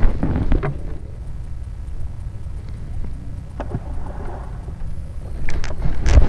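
Steady low rumble of wind on the microphone in a small wooden fishing boat. A single sharp knock comes partway through, and a quick run of knocks near the end as a spinning rod and reel are handled.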